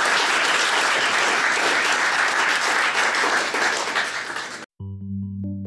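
Audience applauding, cut off abruptly about four and a half seconds in. Music with held notes starts straight after the cut.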